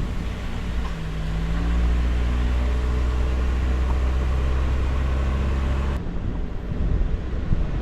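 Vehicle engine running with road rumble while driving, a steady low drone with slight shifts in engine pitch. About six seconds in it cuts abruptly to uneven, gusty wind noise on the microphone.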